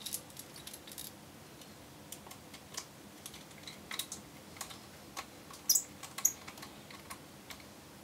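Precision screwdriver driving small screws into the metal side caddy of a 2.5-inch SSD: scattered light clicks and ticks, with two sharper clicks a little past the middle.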